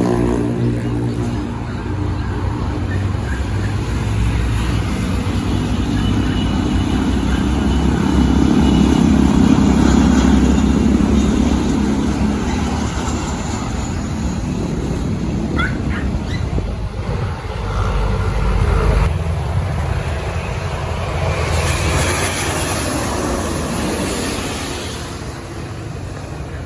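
Jet airliner passing close by, a broad engine roar that builds to its loudest about ten seconds in and then slowly fades.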